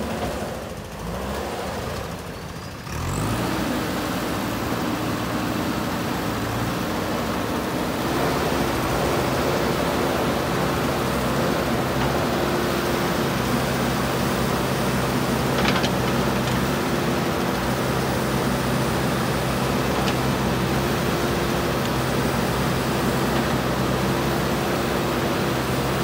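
JCB 3DX backhoe loader's diesel engine running steadily as the backhoe digs, picking up to a higher working speed about three seconds in. A single short knock comes about midway.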